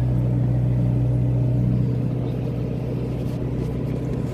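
A boat's inboard engine running steadily under way, a deep, even drone.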